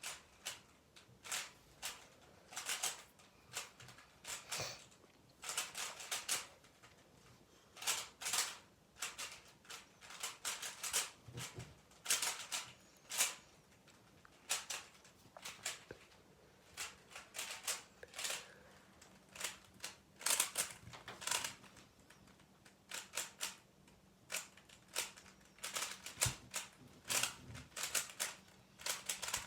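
Rubik's cube being turned by hand during a solve: quick flurries of plastic clicking and clacking as the layers are twisted, with short pauses between flurries.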